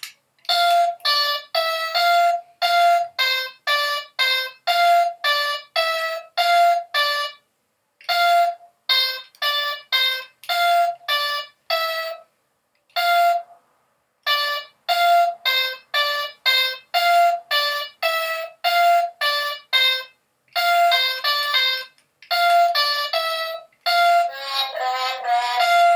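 Handheld electronic Mind Maze game playing short electronic beeps in runs of different pitches, about two a second, with a few brief pauses.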